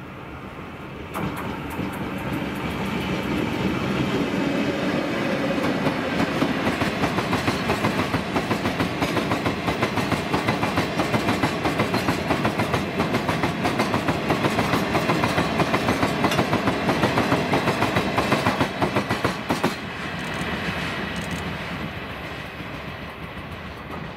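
A freight train hauled by a Chichibu Railway Deki 300-class electric locomotive passes close by, pulling a long string of hopper wagons loaded with limestone. The wheels give a rhythmic clickety-clack over the rail joints. The sound jumps up about a second in and fades in the last few seconds as the train draws away.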